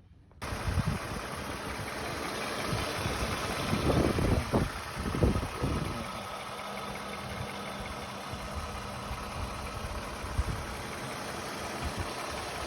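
A Lexus RX 350's 3.5-litre V6 engine running, with a louder, uneven stretch about four to six seconds in before it settles to a steady hum.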